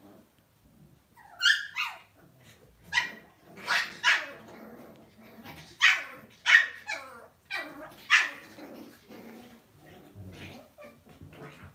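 Lhasa Apso puppy barking: about nine short, high-pitched yapping barks in the first eight seconds, then quieter.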